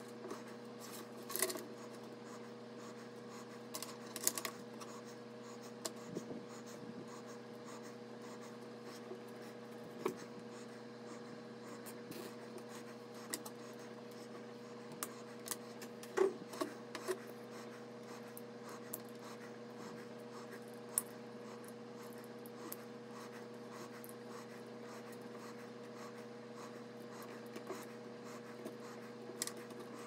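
Cables and plastic connectors handled inside a steel PC case: rustling and scraping with scattered small clicks and knocks, over a steady background hum.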